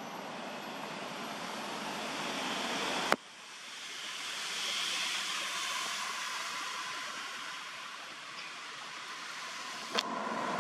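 Steady rushing outdoor background noise with no clear single source. A sharp click about three seconds in marks an abrupt drop and change in the noise, and another click comes near the end.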